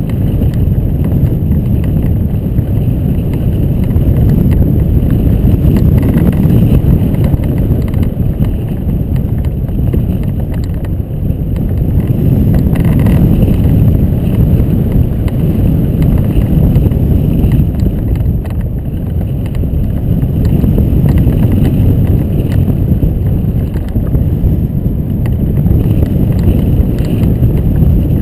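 Airflow rushing over a hang glider's keel-mounted camera in flight: a loud, steady low rumble of wind on the microphone that swells and eases a little.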